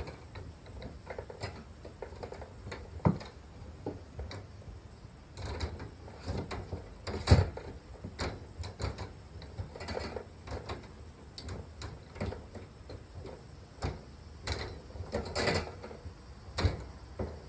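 Wire pet cage rattling and clanking as a kitten climbs its bars and gate clips: irregular clicks and knocks, the loudest about seven seconds in.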